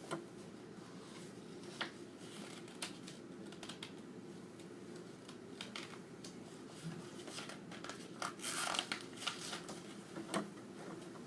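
Faint rustling and soft taps of a paper book being handled during silent reading, with a longer stretch of page rustling about eight seconds in.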